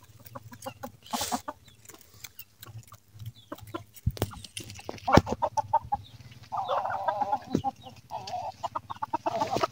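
Domestic chickens feeding: many sharp, irregular clicks of beaks pecking at grain, with hens clucking in a short run of calls past the middle and again near the end.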